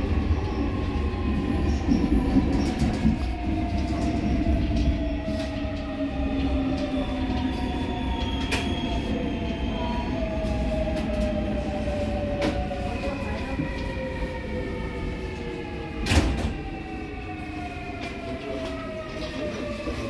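Seoul Line 4 subway train with Alstom GTO inverter drive slowing down: the traction inverter and motors whine in several tones that fall steadily in pitch over the car's low running rumble, as the train brakes into a station. A few sharp knocks come through, the loudest about three-quarters of the way in.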